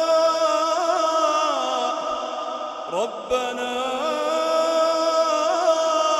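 Melodic Quran recitation: a single voice holding long, ornamented notes with slow pitch glides, pausing briefly for breath about three seconds in before taking up a new held phrase.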